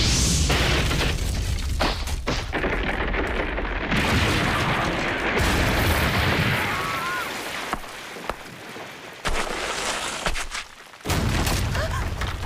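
Anime battle sound effects: a heavy blast with a long low rumble, cut through by sharp cracks and impacts for about seven seconds. It then dies down, and a few more sharp hits come near the end.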